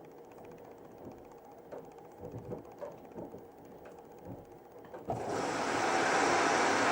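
Panasonic NA-168VX4WGN drum washing machine running a cycle with soft, irregular clunks from the drum. About five seconds in, a loud, steady rushing hiss starts suddenly, like water streaming into the machine.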